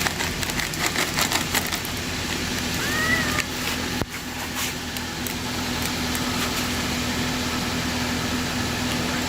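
A steady machine hum under a noisy background, with a run of light clicks in the first two seconds and one short, high mew from a small cat about three seconds in.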